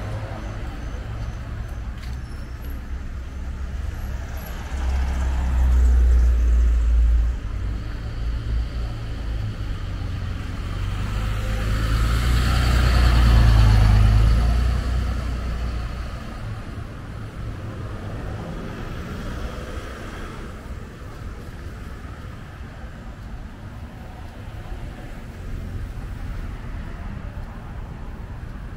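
Motor vehicles passing close on a street, with a low engine rumble. One passes about a fifth of the way in, and a louder one, a pickup truck, passes around the middle. After that there is a quieter, steady traffic hum.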